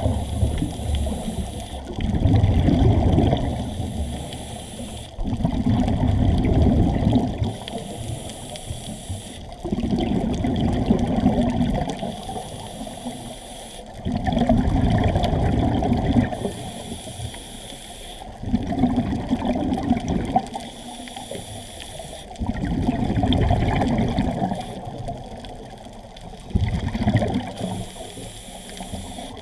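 Scuba diver breathing through a regulator underwater: a short high hiss on each inhale alternates with a louder stretch of exhaled bubbles, about one breath every four to five seconds.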